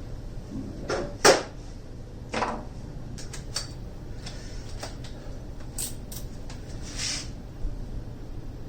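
Scattered clicks and knocks of tools and hardware being handled, one sharp knock about a second in, louder than the rest, then a string of lighter clicks.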